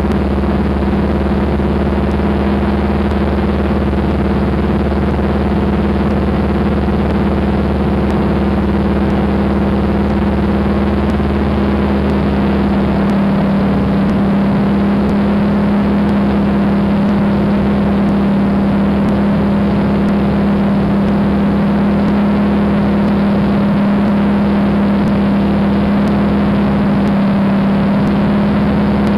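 An AT-6 Texan's Pratt & Whitney R-1340 nine-cylinder radial engine at takeoff power, heard from inside the cockpit: a loud, steady drone through the takeoff roll and climb-out, its tone shifting slightly about halfway through.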